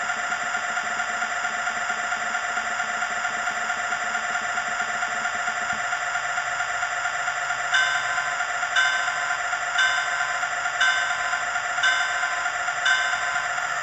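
Sound-equipped HO-scale Burlington diesel locomotive playing its idling diesel engine sound through its small speaker. About eight seconds in, its bell starts ringing, about once a second.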